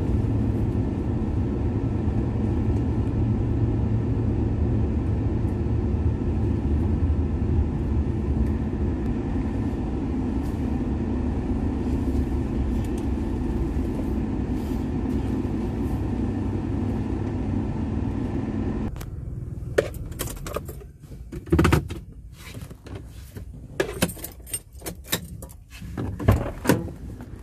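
A car driving, heard from inside the cabin: a steady low rumble of tyres and engine. About two-thirds of the way through it cuts off abruptly, giving way to a quieter stretch of scattered sharp clicks and knocks.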